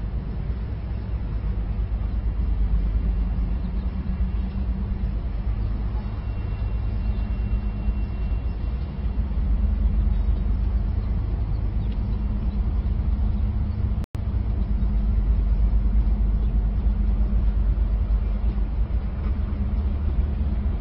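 Steady low rumble of city background noise, with a brief dropout about 14 seconds in.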